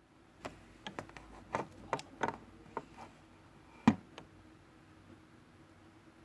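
Slime being poked and squeezed by hand, giving a string of short, sharp clicks and pops, with the loudest pop about four seconds in and quieter handling after it.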